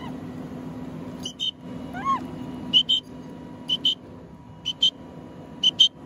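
Fire engine running its pump with a steady low drone while the hose sprays water. Over it, a bird chirps in short pairs about once a second, and one arched call comes about two seconds in.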